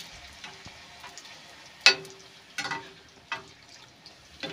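A bhatura deep-frying in hot oil in a kadhai while a metal spoon splashes oil over it. A low frying hiss is broken by several sharp splashes and clinks, the loudest about two seconds in.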